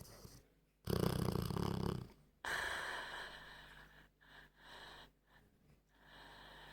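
Old Staffordshire terrier snoring in its sleep: one loud snore about a second in, then a breathy out-breath that starts suddenly and fades away, followed by softer breaths.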